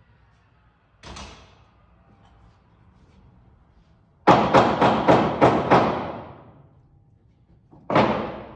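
Nail gun driving nails into the wooden truss: a single shot about a second in, a quick run of about seven shots near the middle, and one more shot near the end, each ringing on in the metal building.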